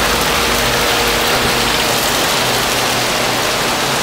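Steady hiss of water from a thin waterfall spilling down a rock face and splashing at its base.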